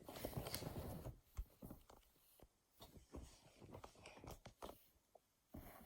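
Faint, scattered soft taps and rustles of small dog treats being set in place one by one, with near silence between them.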